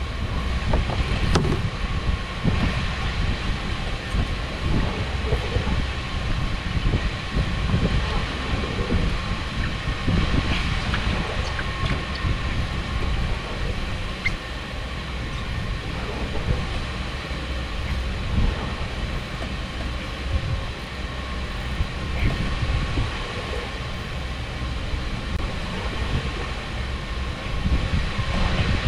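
Steady low mechanical rumble with wind gusting across the microphone, and a faint thin steady whine running above it.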